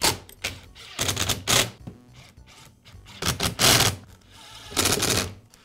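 Cordless brushless driver running in several short bursts, driving screws that clamp the two plastic halves of a string trimmer's throttle handle together.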